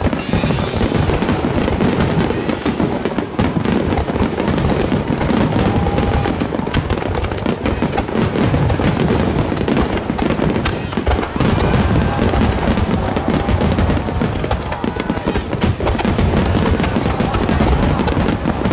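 Large wide starmine fireworks display: a continuous barrage of shells launching and bursting, the pops and booms overlapping without a break.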